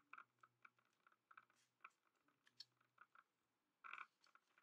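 Near silence: quiet room tone with faint scattered ticks and a brief soft rustle about four seconds in.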